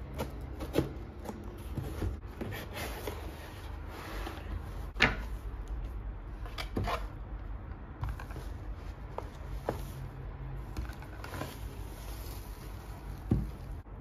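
Unboxing sounds: a cardboard box and bubble wrap rustling as they are handled, and small cardboard product boxes set down on a table with soft knocks, the sharpest about a second in, about five seconds in and near the end.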